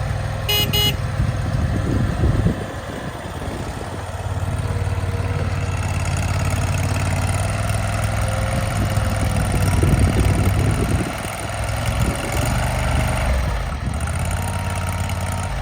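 Engine of an AGT CRT23 mini skid steer loader running, its level rising and falling as the machine is worked, with a brief high-pitched squeal about half a second in.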